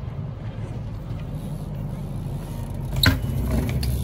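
BMX bike tyres rolling over concrete, a steady low rumble that builds slightly, with a sharp metallic clack about three seconds in.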